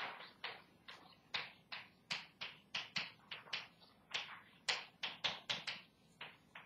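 Chalk writing on a blackboard: a quick, uneven run of short, sharp tapping strokes, about three a second.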